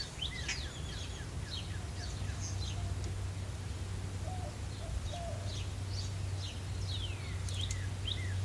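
Birds chirping: many quick, falling chirps in a steady stream, over a steady low hum.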